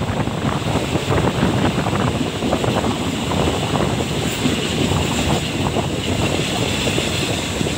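Passenger train running along the track, its wheels and carriages clattering steadily, with wind buffeting the microphone at the open window.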